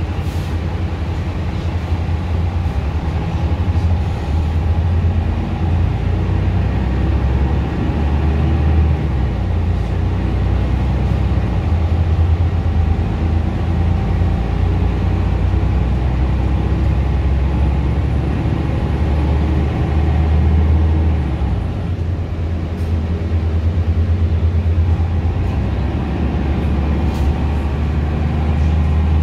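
Mercedes-Benz O530 Citaro city bus heard from inside the passenger cabin while driving: a steady low diesel engine drone mixed with road noise, the engine note shifting as the bus speeds up and eases off, with a few faint rattles.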